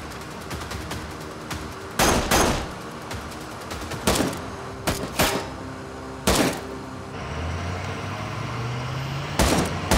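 Rifle gunfire in a film shootout: about eight sharp shots, singly and in quick pairs, at irregular gaps, each with a short echoing tail. Tense background music with held low notes plays underneath.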